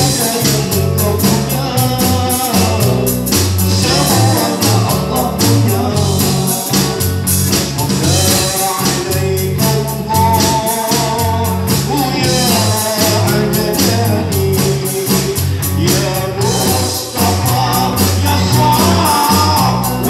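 Live band playing a sholawat, a devotional song in praise of the Prophet Muhammad, on electric guitars and an electronic drum kit with a steady beat, a man singing the melody over it.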